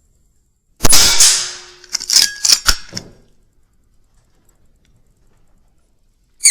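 Weihrauch HW100 .22 pre-charged air rifle firing about a second in: a sharp crack with a short ringing tail, followed by a quick run of clicks and knocks over the next two seconds. A second shot cracks right at the end.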